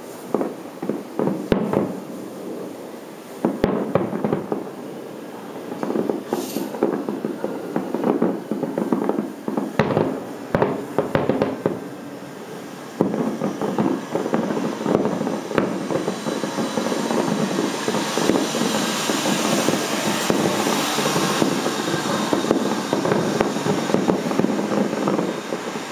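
Fireworks finale: shells going off as separate sharp bangs in quick succession, then from about halfway a dense, continuous barrage of overlapping bursts and crackle that grows brighter and hissier toward the end.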